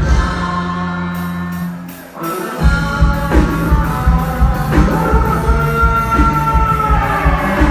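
A song with singing and a steady drum beat. The beat drops out briefly about two seconds in and comes back, and a long held note falls away near the end.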